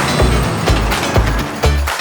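Background music with a steady beat: a heavy bass drum about twice a second over bass notes and light percussion.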